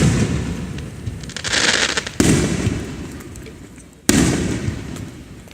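Aerial fireworks shells bursting, three times: a sharp boom at the start, another a little after two seconds and a third about four seconds in. Each dies away slowly as it echoes.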